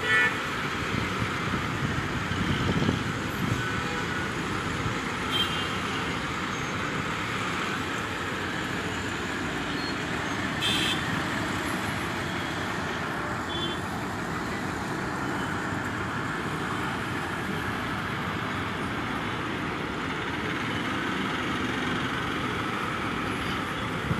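Steady road traffic noise from a queue of vehicles with engines running, with a few brief horn toots.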